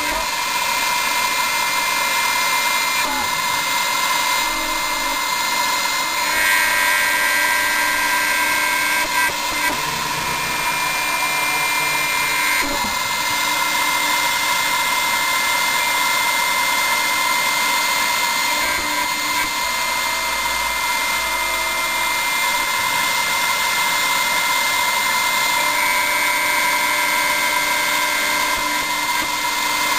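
Home-built CNC milling machine's spindle running a small end mill through a plastic plate: a steady whine with a cutting hiss. Extra whining tones come and go several times as the machine moves through the cut.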